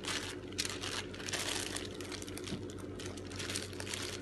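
Thin plastic bags worn as gloves crinkling and rustling irregularly as hands roll sticky cookie dough into balls.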